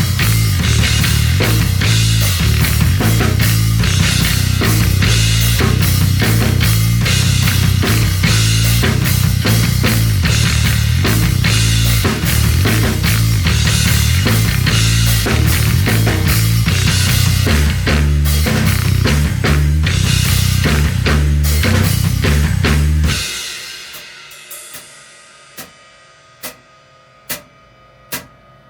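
Bass guitar and drum kit playing a two-note rock riff built on pauses and rhythmic figures. The playing stops about 23 seconds in and the last notes ring out. Then come sharp, evenly spaced clicks a little under a second apart.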